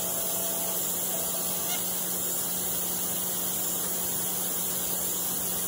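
Kimla CNC router running: a steady hiss with a low, even hum.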